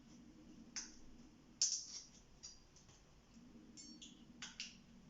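Scattered sharp metallic clicks and taps from a hex-key multi-tool and the stem hardware while a bicycle stem's 4 mm bolts are undone and the stem is taken off. About five clicks, the loudest about a second and a half in, and one near four seconds with a brief ringing ping.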